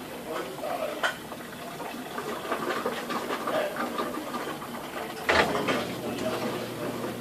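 Samsung front-loading washing machine draining before its spin, with duvets in the drum: a steady mechanical run with water noise, a sharp knock about a second in and a louder thump about five seconds in.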